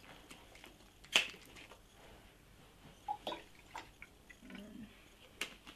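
Bottle of banana juice being opened and poured into the cocktail mix: a sharp click about a second in, a few lighter knocks of bottle and cap, and a soft pouring trickle between them.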